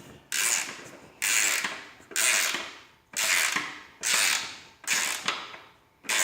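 Ratchet wrench clicking in repeated strokes as nuts are run down on the cutting-edge bolts of a snow blade: seven strokes, each starting sharply and fading, about one a second.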